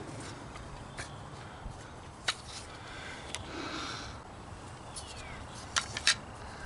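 A few scattered light clicks and taps over low background noise, with a brief faint scratchy rustle about halfway through.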